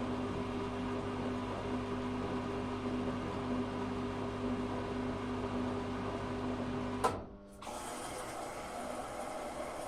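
Zanussi FA623 washing machine running with a steady, even hum. About seven seconds in, the hum cuts off with a click, leaving a fainter, even background noise.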